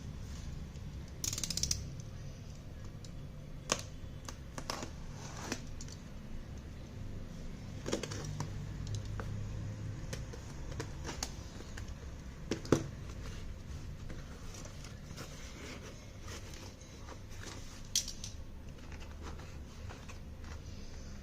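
Hands handling a parcel's packaging: scattered small clicks, taps and rustles, with a louder snap now and then, over a steady low hum.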